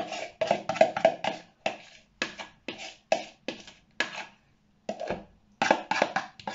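A spoon scraping and knocking thick dressing out of a plastic bowl in quick, uneven strokes, about three or four a second, with a short pause partway through.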